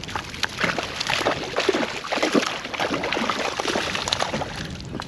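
A hooked trout thrashing at the water's surface, a run of quick irregular splashes and sloshing.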